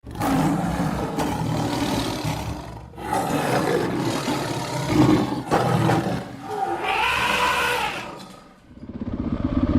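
Motorcycle engine revving loudly under load, its pitch rising and then falling a couple of seconds before the end. Near the end it settles into an even, pulsing beat.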